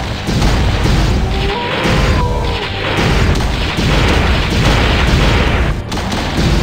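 Cartoon weapon-blast and explosion sound effects, one after another, over background music.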